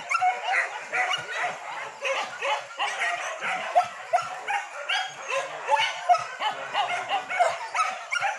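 A pack of hunting dogs barking and yelping nonstop, many short calls overlapping from several dogs at once.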